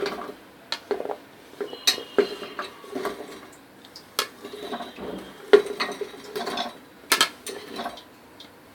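Metal pressure cooker clinking and knocking as pieces of elephant-foot yam are put into it, a string of separate knocks, some with a short metallic ring, stopping near the end.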